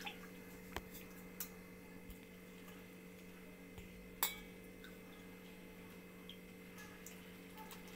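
A few light, sharp clinks of kitchen bowls knocking together, the clearest about four seconds in, over a faint steady hum.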